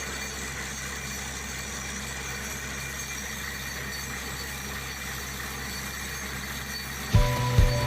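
Borewell drilling rig's machinery running with a steady low drone. Near the end, a louder rhythmic clatter starts suddenly, at about two to three beats a second.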